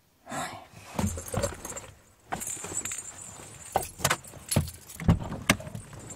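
Bunch of keys jangling, with a string of sharp clicks and knocks as they are handled in a car.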